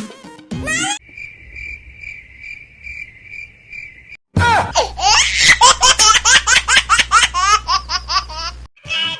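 A cricket chirping sound effect, an even chirp about twice a second, like the 'awkward silence' gag. About four seconds in, a loud, rapid, high-pitched giggling laugh breaks in over a low hum and stops shortly before the end.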